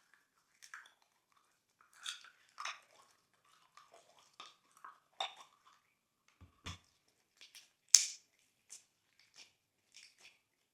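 Glossy slime being squished and stretched by hand, giving off irregular small sticky pops and crackles as air bubbles burst, with a soft thump a little past six seconds and one sharper pop about eight seconds in.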